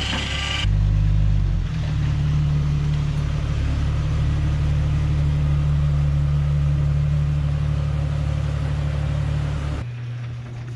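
Jeep Wrangler TJ engine running steadily, with a step up in level less than a second in and a drop near the end.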